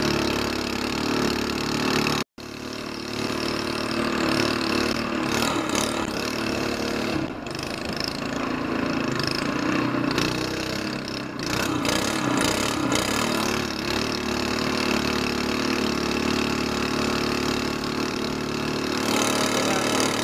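Longtail mud motor's small single-cylinder air-cooled gas engine running steadily under way, fitted with an aftermarket SPS exhaust header, with water rushing past the hull. The sound cuts out for an instant about two seconds in.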